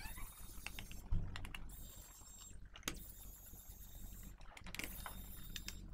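Small electric precision screwdriver running in several short bursts, a high whine each time, as it backs out the laptop's bottom-cover screws. Sharp clicks of the bit and screws come between the bursts.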